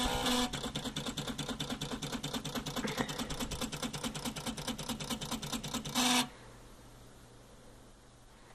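Homemade dot matrix pen printer built from CD drive mechanisms, driven by stepper motors, running as it prints. It gives a steady buzzing tone, then rapid regular pulses about eight a second, a short steady buzz again about six seconds in, and then the motors stop.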